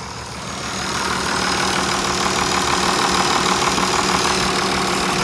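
International tractor engine idling steadily, getting louder about a second in.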